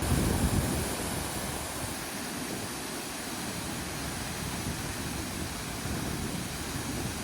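Steady rushing background noise, with a louder low rumble for about the first second.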